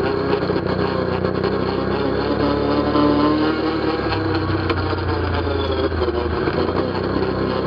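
ATV engine running while riding, its low note shifting for a couple of seconds around the middle.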